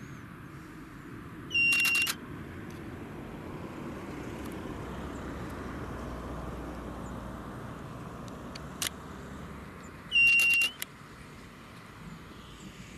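Continuous wind buffeting the microphone. Twice, about two seconds in and again near ten seconds, a short high beep sounds with a quick run of clicks over it, and there is a single sharp click shortly before the second.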